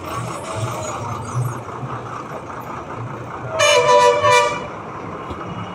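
A vehicle horn gives one loud toot of just under a second, about three and a half seconds in. Under it runs a steady low engine rumble of bus-stand traffic.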